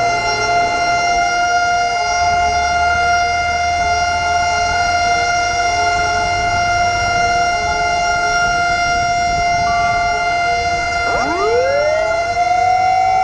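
Fire truck siren holding one steady high tone, then winding up again from a low pitch to a high one about eleven seconds in.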